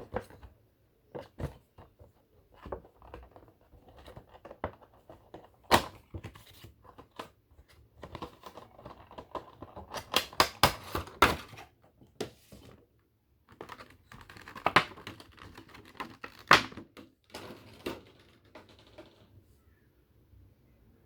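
Cardboard box and plastic packaging being handled and opened: an irregular run of clicks, taps and crinkling, busiest in the middle, then tapering off.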